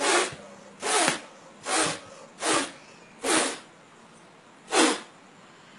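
Six quick strokes of a sword blade hitting and swishing across a man's bare back, each a short hissing slap.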